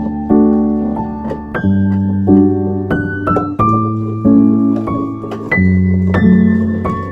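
Background piano music: a gentle melody over sustained bass chords, each note struck and then fading.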